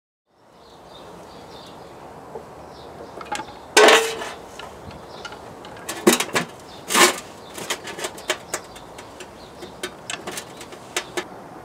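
Metal clattering as the BMW K75's valve cover is handled in a metal drip tray. One loud clank about four seconds in rings briefly, two more knocks follow a couple of seconds later, then lighter clinks and ticks.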